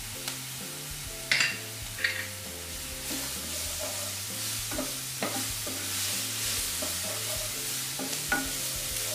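Onion, lemongrass and ground spice paste sautéing in hot oil in a wok, with a steady sizzle. A wooden spatula stirs and scrapes through it, giving a few sharp knocks against the pan.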